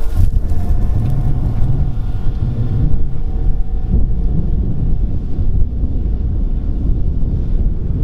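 Fendt 828 tractor engine running under load, a low rumble half buried under heavy wind buffeting on the microphone.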